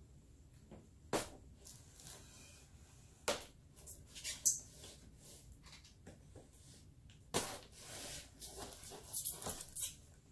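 Kitchen knife slitting the tape on a cardboard shipping box: a few separate sharp scrapes and taps, then a run of quick scratchy cutting and rustling near the end.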